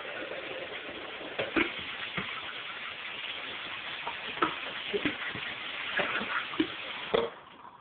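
A pancake frying in a pan on a gas burner: a steady sizzle with scattered crackles and pops, which drops away sharply about seven seconds in.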